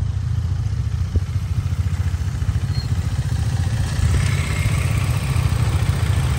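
KTM Duke 390's single-cylinder engine running at low revs, a steady, fast-pulsing low beat.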